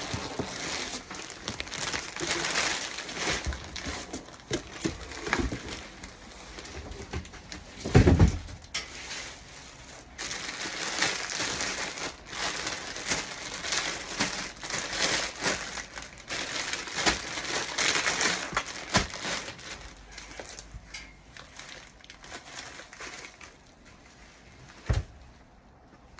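Packaging crinkling and rustling as a parcel is unpacked by hand, with irregular handling noises throughout. One heavy thump about eight seconds in and a short knock near the end.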